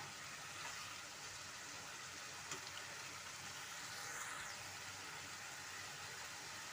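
Leafy-greens, carrot and tomato curry sizzling in a non-stick kadai: a faint, steady hiss as it cooks.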